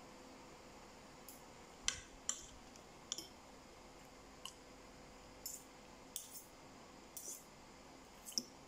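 Spoon and fork clinking and scraping against ceramic bowls while eating rice, about ten light, irregular clinks.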